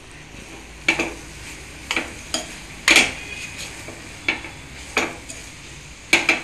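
Metal spoon scraping and clinking against a stainless steel pan while a dry vegetable stir-fry is turned over, about eight separate scrapes with a faint sizzle underneath.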